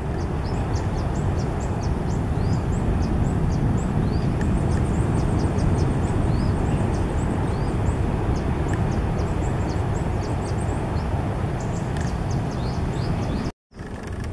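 Birds chirping in many short, quick calls over a loud, steady low rumble. The sound cuts out briefly near the end.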